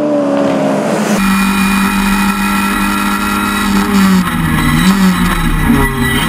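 Race car engine: for about a second its note falls as it comes off the throttle, then after a cut a steady engine note holds, dipping and rising slightly a few times.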